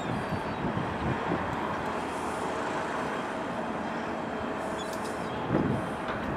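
Steady rumble of the aircraft carrier HMS Illustrious passing close by, with a faint steady hum and a brief swell about five seconds in.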